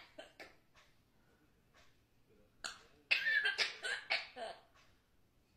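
African grey parrot vocalizing: a few short clicks at the start, then a run of short rasping, cough-like sounds from about three seconds in.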